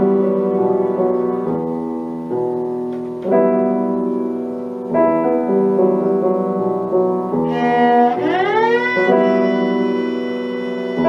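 Cello and piano playing a classical cello sonata, with sustained bowed notes over piano chords. About eight seconds in, a long note slides upward in pitch.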